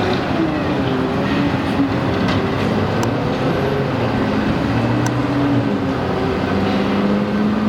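Steady low engine rumble with a wavering pitch and a few faint clicks.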